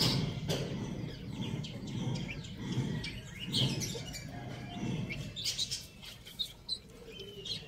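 A small flock of young chickens peeping and chirping in short calls, with softer low clucks, while they peck at soil on concrete. Occasional sharp taps are heard in between.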